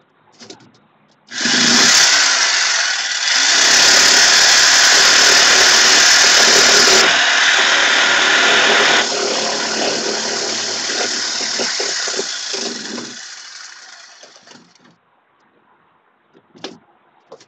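Corded reciprocating saw running and cutting. It starts about a second in and runs hard for about eight seconds, then tapers off and stops; a single short knock follows near the end.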